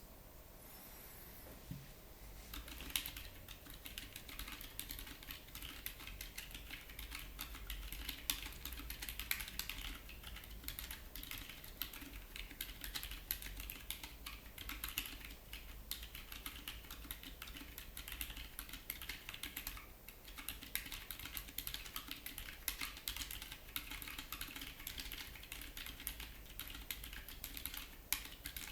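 Continuous fast typing on a Keyboardio Atreus mechanical keyboard with Gazzew Boba U4 silent tactile switches (62 g) and MT3 keycaps: muted, soft keystrokes in quick succession. The typing starts about two and a half seconds in.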